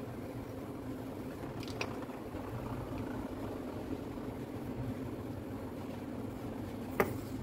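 Steady low background hum, with a faint click early in and a single sharp click near the end as parts of a disassembled cordless impact driver's motor are handled.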